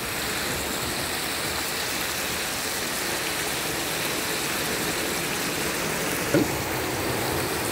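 Wahoo medallions frying in butter and oil in a wide pan, sizzling steadily. A brief short sound cuts in once about six seconds in.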